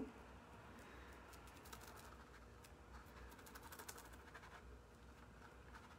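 Faint, irregular scratching and light ticking of fingertips rubbing a rub-on floral transfer down against a textured lampshade, pressing out trapped air bubbles.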